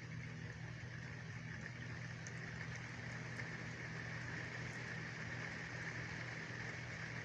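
Steady rain, with a constant low hum underneath and a few faint drip ticks.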